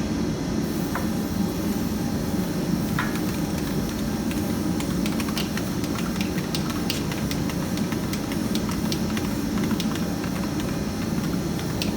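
Aerosol spray-paint can hissing in a long, unbroken spray, with a steady low hum and a few faint clicks underneath.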